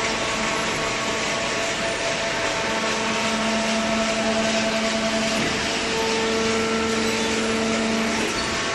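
Automatic hydraulic cardboard baler running: a steady machine noise with a hum that grows stronger a few seconds in and eases off shortly before the end.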